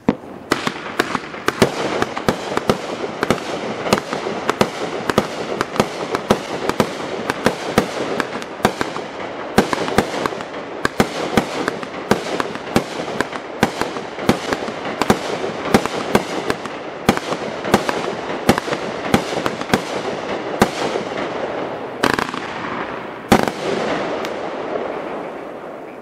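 A Winda 'Man Cave' 36-shot, 500-gram consumer fireworks cake firing. It sends up a rapid string of shots, one to two a second, whose bursts overlap into a continuous crackle. Two of the loudest bangs come a few seconds before the end, then the sound dies away as the cake finishes.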